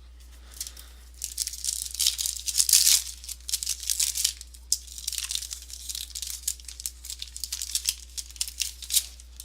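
A trading-card pack wrapper being torn open and crinkled, with the cards handled: irregular crackling rustles, loudest about three seconds in.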